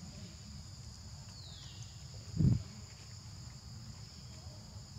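Insects droning steadily at two high pitches, over a low rumble, with one dull low thump about two and a half seconds in.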